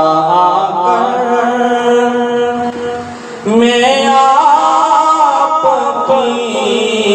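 A solo male voice singing a naat, devotional praise of the Prophet, into a microphone. It holds long notes with wavering ornaments, drops away briefly about three seconds in, then comes back strongly on a new phrase.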